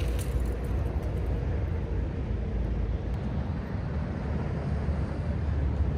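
Steady low wind rumble and rolling noise as a DYU C1 e-bike is ridden down a steep descent.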